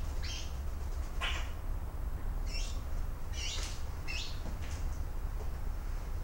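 Hand-reared young Eurasian magpie giving short scratchy begging calls, about six of them roughly a second apart, as it is hand-fed.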